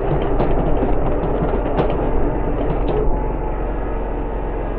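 Walker GHS zero-turn ride-on mower running steadily at mowing speed with the deck engaged, a loud constant engine drone. A scatter of short sharp ticks and crackles sits over it in the first three seconds.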